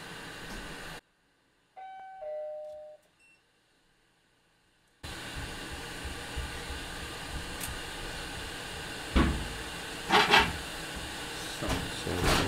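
A steady hiss of bench equipment cuts out for a few seconds. In the silence a short electronic chime sounds, two notes stepping down. When the hiss returns, a few sharp knocks come near the end as a soldering iron is put to the board.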